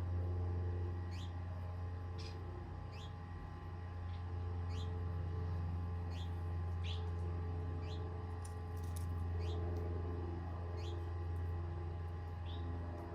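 A small bird repeating short, high chirps that sweep downward in pitch, often in quick pairs, about one or two a second, over a steady low hum.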